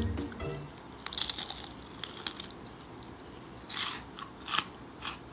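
Crispy fried chicken being bitten and chewed: a run of crisp crunches, loudest about four seconds in.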